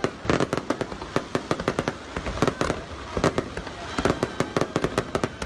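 Fireworks going off in a rapid, irregular string of sharp bangs and crackles, many overlapping.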